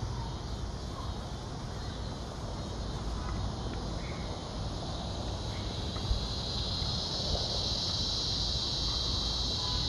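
Insect chorus, a steady high-pitched drone that grows louder about halfway through, over a steady low rumble.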